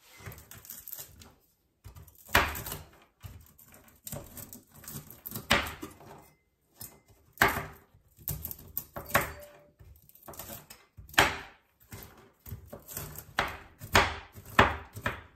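Large kitchen knife chopping frozen walnuts on a plastic cutting board. The blade strikes the board in irregular knocks, some in quick runs of two or three, with short pauses between runs.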